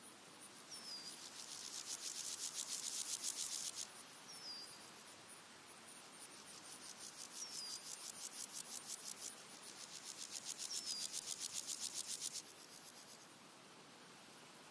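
Red-legged grasshoppers stridulating: three bouts of rapid, evenly pulsed high rasping, each swelling over a couple of seconds and then stopping abruptly. A short down-slurred bird chirp repeats about every three seconds, and a faint high ticking insect continues between the bouts.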